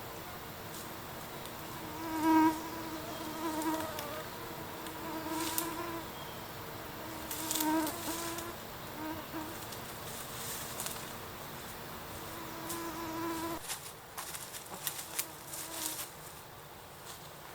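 A flying insect buzzing close by, its hum swelling and fading as it comes and goes. Near the end the buzz stops and a few light clicks follow.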